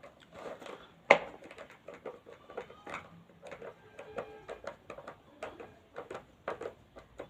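A Phillips screwdriver driving a screw into a blender's plastic housing: a run of irregular small clicks and ticks as the screw turns and seats, with one sharp click about a second in.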